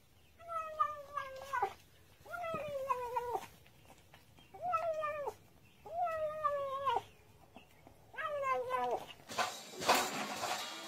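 Domestic cat yowling while eating from its bowl: five drawn-out, wavering calls of about a second each. Near the end a rattling noise takes over.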